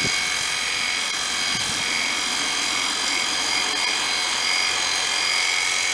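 A steady, high-pitched mechanical whine over a hiss, holding one pitch throughout.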